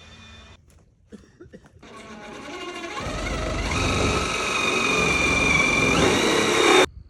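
A motor spinning up: its whine climbs in pitch and loudness, holds steady, steps higher near the end and then cuts off abruptly.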